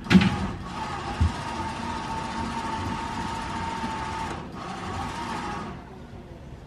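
Caravan transporter lorry's winch running with a steady whine, dragging a static caravan up its tilted bed, with two heavy knocks in the first second or so. The whine breaks off briefly about four and a half seconds in, then stops near the end.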